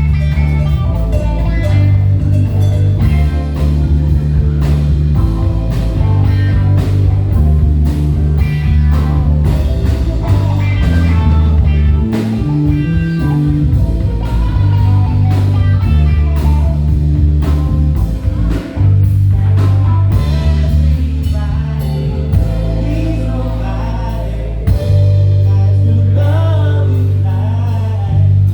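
Live band playing a blues-soul groove: electric bass, drum kit, keyboard and guitar, with a heavy bass line. Near the end the bass holds one long low note.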